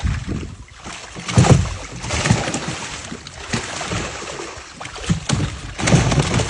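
Water sloshing and splashing in irregular surges as a fish trap is handled in the water.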